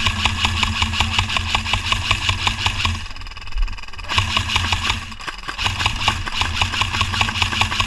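Electric airsoft light machine gun firing full-auto in two long bursts, a rapid even rattle of shots over the whine of the gearbox motor, with a pause of about a second between them.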